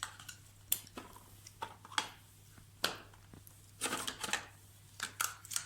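Light clicks and knocks of toy kitchen dishes and pieces being handled and set down, irregular, with a quick cluster of clatter about four seconds in.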